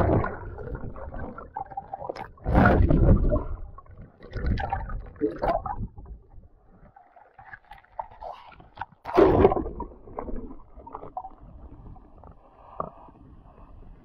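Sea water splashing and sloshing over a waterproof action camera as it dips in and out of the water, the sound going dull and muffled while it is under. The loudest splashes come at the start, about two and a half seconds in and about nine seconds in.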